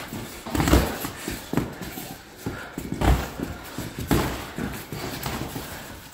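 Boxing sparring: irregular thuds of gloved punches and footwork on the padded ring mat, with three heavier thumps about a second in, about three seconds in and about four seconds in.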